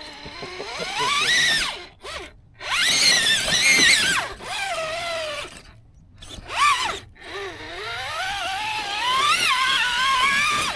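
RC rock crawler's stock electric motor and geartrain whining, the pitch rising and falling as the throttle is worked, dropping out briefly a few times as the throttle is released.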